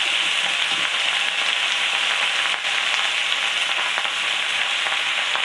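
Hot oil sizzling steadily in a frying pan under a heap of fresh sour greens (tok shak) as they begin to wilt.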